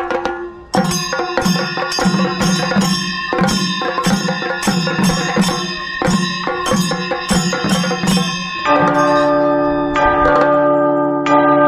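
Chenda melam: chenda drums beaten with sticks under the bright clash of ilathalam hand cymbals, in an even beat of about two to three strokes a second. About three seconds before the end the drumming cuts off and gives way to sustained, bell-like chords of music.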